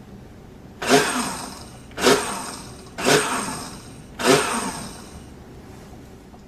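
Hamilton Beach Power Elite blender pulsed four times, about a second apart, blending a milky mix in its glass jar. Each press spins the motor and blades up sharply, then the pitch falls as they coast down.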